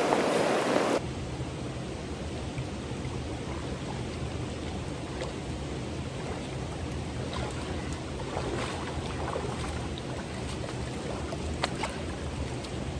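Rushing river water, cut off abruptly about a second in. After the cut comes a quieter, steady low rumble of moving water, with scattered light ticks as of raindrops or small splashes.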